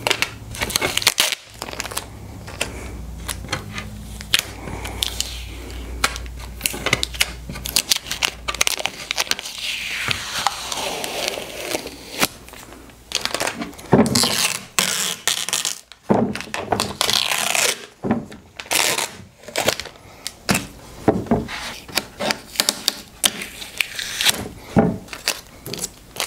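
Tape being peeled off epoxy-filled wooden panels in repeated ripping pulls, with crinkling as it comes away and fingers scraping at the edges. The tape is stuck fast where the epoxy soaked into it. A low hum runs underneath for the first several seconds.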